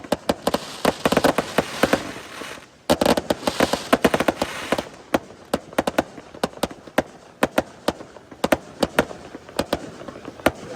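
Fireworks going off: a dense run of rapid cracks and bangs, with a short lull between two and three seconds in, then thinning after about halfway to scattered sharp crackles and pops.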